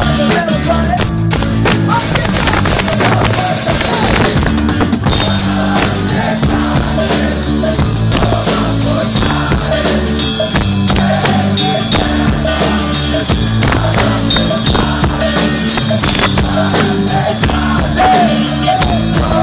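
Rock band playing live: a drum kit keeps the beat under steady bass notes, with a singer's voice over it.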